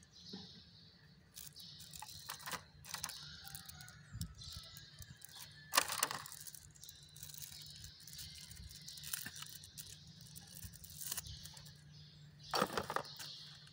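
Plastic packaging and small accessory parts of a new action-camera kit being handled: rustling and tearing with scattered clicks, a sharp snap about six seconds in and a louder rustle near the end.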